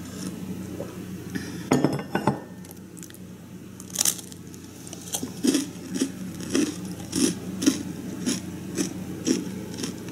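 Crisp crunching as a sugar-coated fried bread stick is chewed, in short crackles about two a second through the second half. About two seconds in, a ceramic teacup clinks down onto its saucer.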